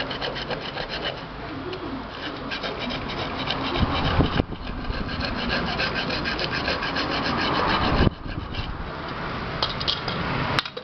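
Coarse sandpaper for metal rubbed quickly back and forth by hand on the aluminium rim of a pressure-cooker lid, a fast scraping rasp that smooths the metal so the rubber gasket will seal. The strokes pause briefly twice and stop just before the end.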